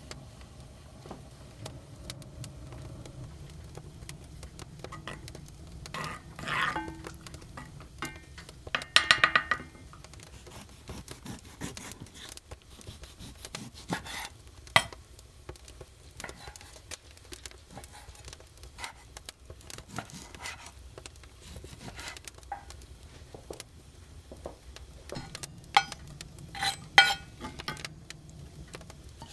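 Chef's knife slicing raw pork belly on a wooden cutting board, the blade knocking on the board, with a short loud clattering about nine seconds in. Near the end the pieces are scraped off the board into a cast-iron pot, with a few loud clanks.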